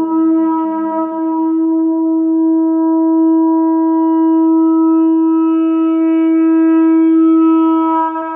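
A single long held musical note at one steady pitch, with its upper overtones growing a little stronger near the end.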